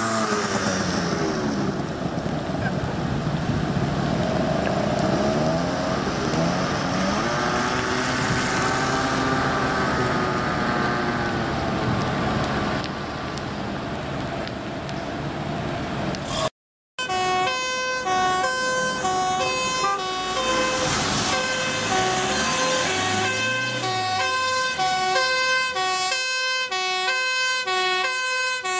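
Fire engine sirens. At first several overlapping sirens glide up and down in pitch. After a brief cut about halfway, a siren alternates steadily between two pitches.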